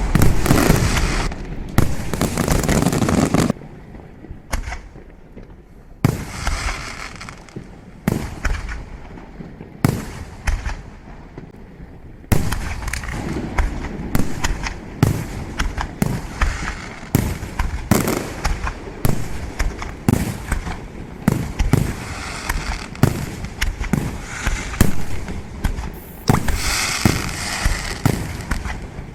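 Fireworks display: a dense barrage of bangs and crackling at the start, then scattered shell bursts, building again about twelve seconds in to a rapid run of reports, several a second, with crackling near the end.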